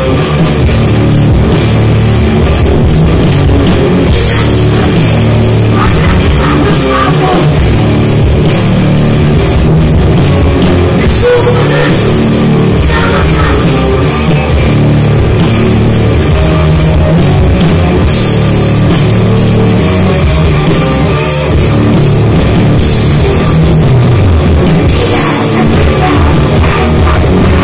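Heavy metal band playing live and loud: distorted electric guitars, bass and a drum kit.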